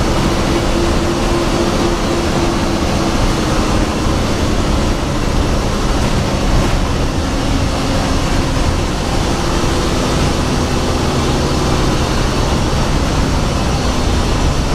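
Bus engine running and road noise inside the cab while driving on a highway, a steady loud drone with the engine note shifting slightly in pitch.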